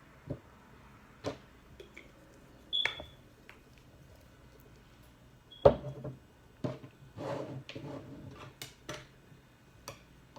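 Scattered clicks and knocks of ingredient containers and a jar being handled and set down, two of them with a brief ringing clink; the loudest knock comes about five and a half seconds in.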